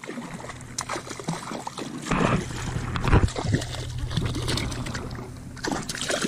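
Water splashing and trickling, with irregular knocks, as a hooked bonefish is brought to hand at the surface. A low rumble sets in about two seconds in.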